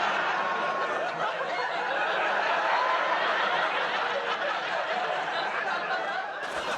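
Studio audience laughing, a long sustained wave of laughter that holds steady until it cuts off near the end.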